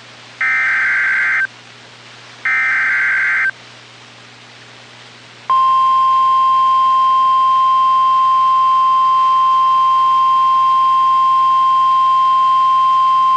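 NOAA Weather Radio SAME digital header: the last two of its three one-second bursts of shrill warbling data tones, a second apart, marking the start of an emergency alert, here a tornado warning. About five and a half seconds in, the steady single-pitch 1050 Hz Weather Radio warning alarm tone starts and holds loudly.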